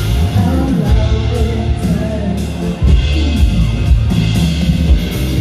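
Live pop band playing: drums, bass and electric guitar, with a woman singing over the band.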